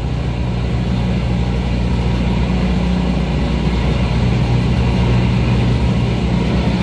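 Stainless steel paddle blender running empty, its electric drive motor turning the paddle shaft with a steady mechanical hum.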